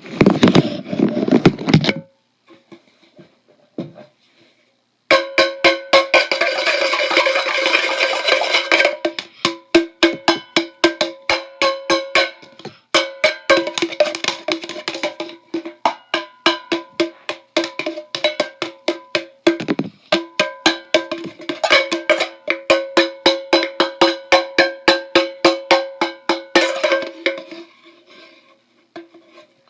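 Percussive music: a fast, steady beat of sharp struck hits, about three a second, over sustained pitched tones. It starts with a short loud burst, goes nearly quiet for a few seconds, then the beat runs on and fades out near the end.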